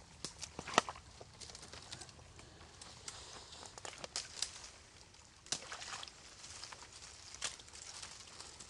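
Footsteps through wet leaf litter and brush, with twigs snapping and branches rustling past, in irregular scattered snaps; the loudest snap comes a little under a second in.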